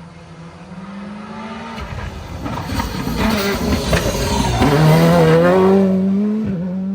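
Rally car engine coming past at close range: it drops in pitch about two seconds in as the car slows, runs rough and noisy for a moment, then rises in pitch as it accelerates hard, with a brief dip for a gear change near the end. It is loudest about five seconds in.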